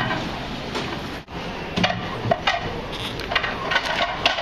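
Coffee-shop counter clatter: an irregular run of sharp knocks and clinks from cups and equipment.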